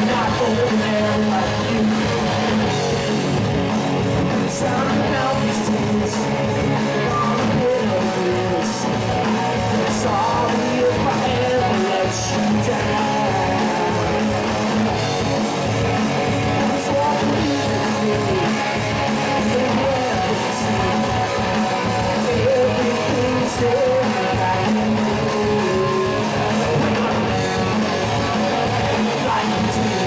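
Live rock band playing a song: electric guitars and bass guitar at a steady loud level, with a man singing over them.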